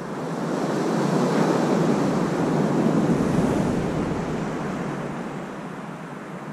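Sea surf breaking on a sand beach: one wave's rush swells, peaks a couple of seconds in, then fades as it washes out.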